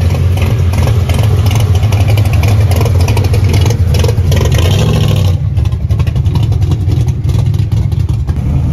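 Classic Ford Mustang fastback's V8 running loud as it pulls away at low speed, with a deep, throbbing exhaust note. The note softens somewhat about five seconds in as the car moves off.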